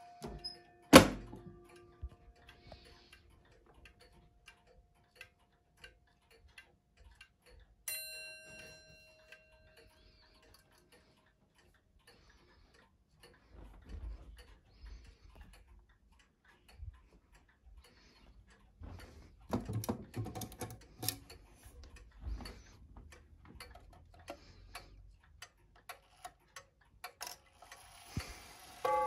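Pendulum wall clocks ticking steadily, with a loud knock about a second in and a single ringing clock strike with a slowly decaying tone about eight seconds in. Another strike begins right at the end.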